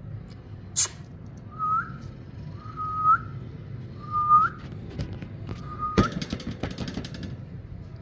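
Eastern rosella whistling four times, a second or so apart, each note a steady whistle that flicks upward at the end. About six seconds in, a sharp knock followed by a second of rattling.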